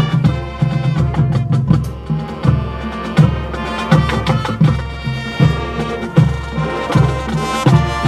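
Marching band playing: brass and woodwinds hold chords over a low bass line, with drum hits and front-ensemble mallet percussion marking a steady beat.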